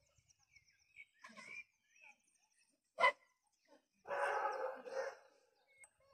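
A dog barking: one sharp bark about three seconds in, then a longer bark call a second later. Birds chirp faintly at the start.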